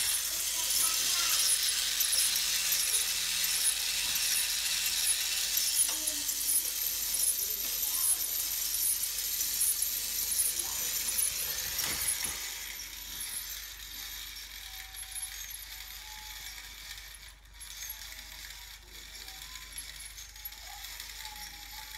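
Meccano clockwork motor running down, a steady high whir from its spring-driven gear train. It is loud for about twelve seconds, then goes on more faintly.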